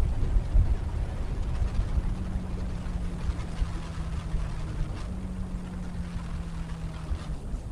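Wind buffeting a motorcycle-mounted microphone at riding speed, louder than the Benelli BN600i's inline-four engine, whose steady note runs underneath. The engine note steps up about five seconds in and drops away near the end.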